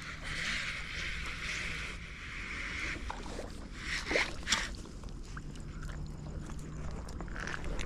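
Fishing reel being cranked to wind in line: a steady whirring hiss for about three seconds, then a few sharp knocks and rustles of gear handling about four seconds in.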